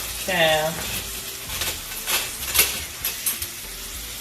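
Food sizzling in a pan on the stove, with a few sharp clinks of a utensil against the pan or dishes.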